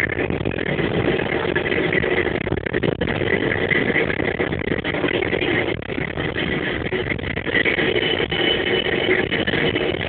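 Steady engine noise, a continuous drone.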